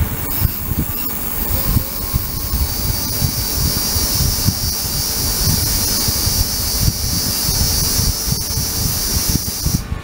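High-pitched hiss of an ultrasonic cleaning tank running, building over the first second or two and cutting off suddenly near the end. Underneath, a steady low rumble of the tank's circulating liquid splashing.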